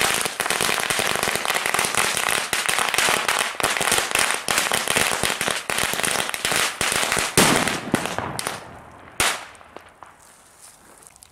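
Firecrackers going off in rapid succession, a dense crackle of many small bangs a second for about eight seconds, with two louder single bangs near the end before it dies away.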